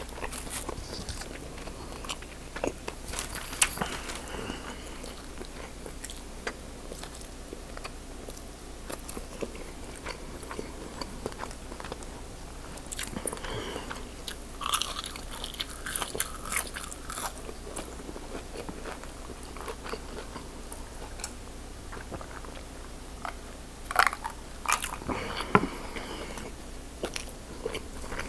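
Close-miked chewing and biting of seafood, with scattered wet mouth clicks and crisp crunches of battered fried shrimp, busiest around the middle and again near the end.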